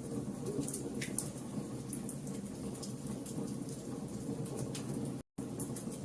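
Fire burning with a steady low rushing and scattered sharp crackles and pops. The sound cuts out completely for a split second about five seconds in.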